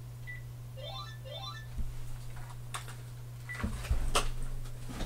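A steady low electrical hum with a few sharp clicks in the second half, typical of computer mouse clicks, and two quick rising chirps about a second in.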